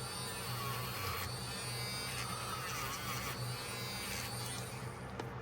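Small handheld rotary tool with a wire brush whining steadily as it scrubs the metal of a pocketknife, cleaning off rust spots, with two rasping stretches of brushing. The whine stops near the end.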